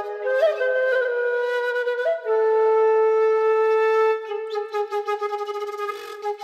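Background music: a slow melody on a single wind instrument, in long held notes that step between pitches. It is softer and wavering over the last couple of seconds.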